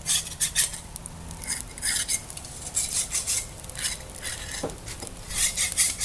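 Metal blade scraping along the wires of a wire grill grate to clean it, in clusters of quick, sharp strokes with short pauses between.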